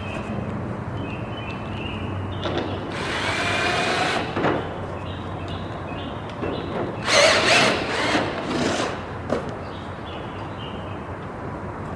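Power drill driving screws in short bursts, fastening door hinges to an aluminium door frame; the two longest runs come about three seconds in and about seven seconds in, each rising in pitch as the motor speeds up.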